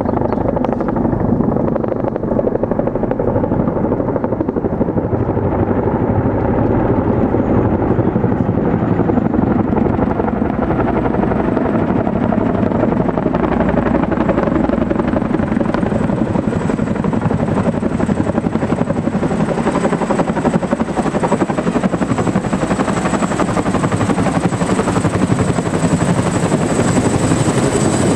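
CH-47 Chinook tandem-rotor helicopter flying in and coming low overhead: continuous rotor and turbine engine noise that grows brighter as it closes, with a thin high whine strengthening toward the end.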